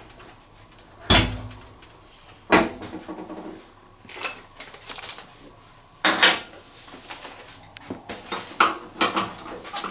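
Handling clatter of a wrench and transport bolts at the back of a washing machine: scattered knocks and metal clinks, with a heavier thump about a second in and a run of quick clinks near the end.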